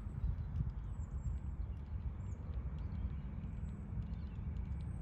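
Wind buffeting the microphone: a low, uneven rumble with a few faint small clicks.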